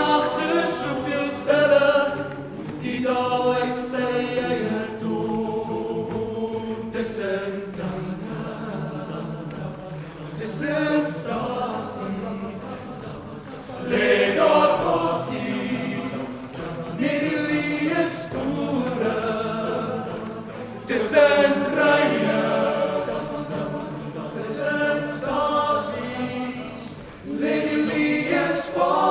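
All-male choir of many voices singing a cappella in harmony, swelling louder at several points.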